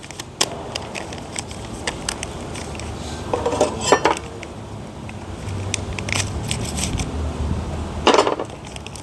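Handling sounds at a camp table: scattered light clicks and clinks of stainless steel cookware, with two louder crinkling bursts about halfway through and near the end from a coffee sachet being handled and opened.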